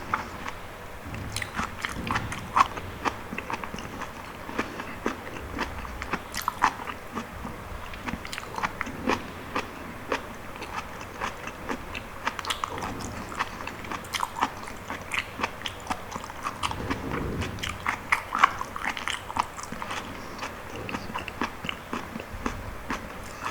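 Close-miked chewing of soft, sticky fruit: a steady run of small wet clicks, smacks and crunches.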